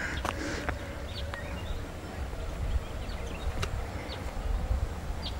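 Birds chirping faintly in short, high, scattered calls over a steady low rumble.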